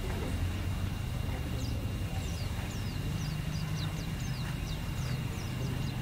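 White-eye (pleci) singing a rapid twittering run of short, high, falling chirps that starts about a second and a half in and keeps going, over a steady low rumble.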